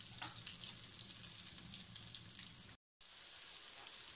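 Flour-coated meatballs frying in hot olive oil, being sealed and browned: a steady sizzle of fine crackles that cuts out briefly about three seconds in.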